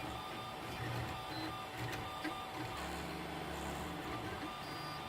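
3D printer at work: its stepper motors whir in a string of short tones that keep changing pitch as the print head moves back and forth, with a lower steady hum near the middle.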